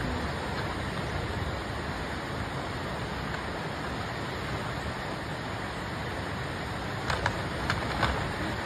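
Flood-swollen river rushing past its eroding bank: a steady, even rush of fast water, with a few brief clicks near the end.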